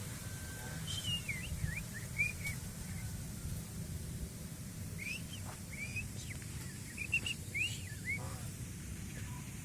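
Small birds chirping in short whistled notes that glide up and down, in two bursts of calls, over a steady low rumble.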